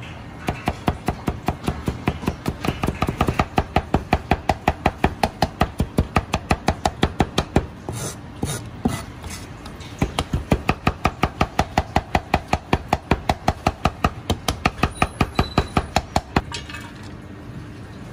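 Chinese cleaver rapidly mincing garlic on a plastic cutting board: fast, even knocks of the blade on the board, about five a second. There is a short break about eight seconds in, then the chopping resumes and stops near the end.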